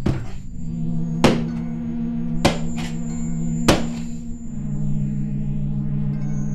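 Four hard blows of a shoe slammed onto a concrete floor, evenly spaced about a second apart, each with a short ringing tail, over a low sustained musical drone.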